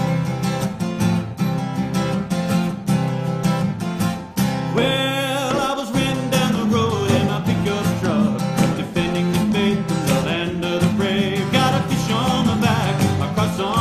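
Country-style music led by plucked acoustic guitar with a steady beat.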